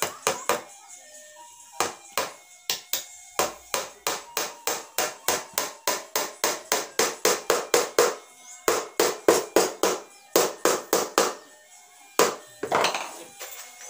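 Hammer driving nails into a 12 mm plywood speaker box: a long run of sharp strikes, about three to four a second, with brief pauses about eight and ten seconds in, stopping a little after eleven seconds.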